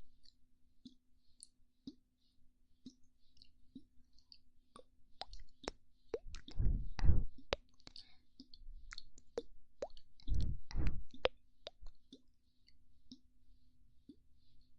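Close-miked ASMR mouth sounds: a string of wet lip pops and mouth clicks, with two louder, low, puffy bursts about halfway through and again about two-thirds through.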